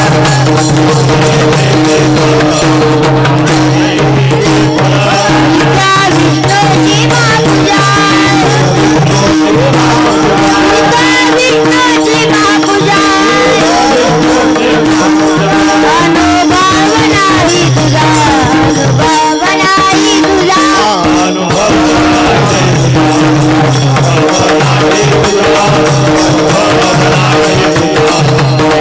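Devotional kirtan music played without words. A steady low drone runs under fast jingling hand cymbals and drumming, with a wavering melody line in the middle.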